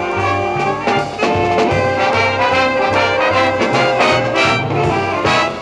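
A 1965 high school band recording: a brass-led band with trombones and trumpets playing held chords over a low bass line that steps from note to note.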